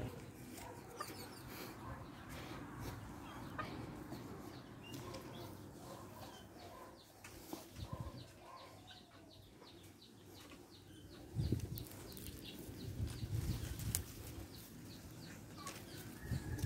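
Outdoor ambience of small birds chirping in short, scattered calls, with a few low rumbling buffets on the phone's microphone, the loudest about 11 seconds in and again around 13 to 14 seconds.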